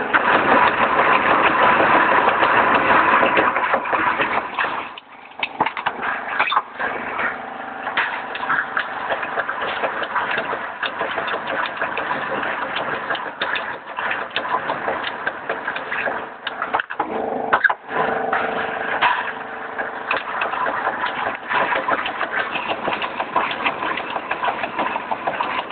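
A roll forming machine for hollow gypsum-ceiling profiles runs with a steady mechanical noise and many sharp clicks and knocks. The sound drops briefly about five seconds in and again near seventeen seconds.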